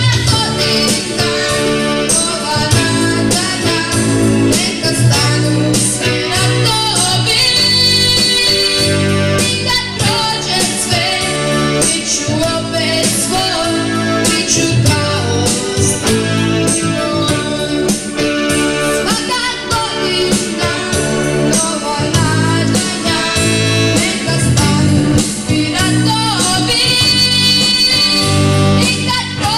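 A boy's unbroken voice singing a pop song into a microphone, with electronic keyboard accompaniment and a repeating bass line.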